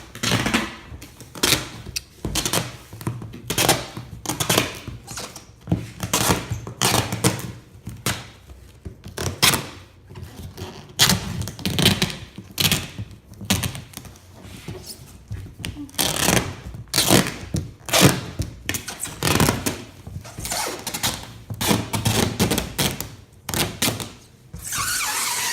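Duct tape being ripped off the roll in many short, quick pulls and pressed onto cardboard boxes, with knocks on the cardboard; a longer, continuous rip of tape near the end.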